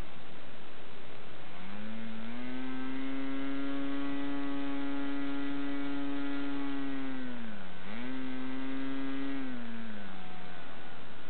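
OS 40 LA model airplane engine converted to diesel with a Davis Diesel head, running a propeller. It speeds up from idle about two seconds in and holds a steady high note, sags briefly near eight seconds, picks back up, then drops back down to a steady idle near the end, showing that the diesel conversion now idles.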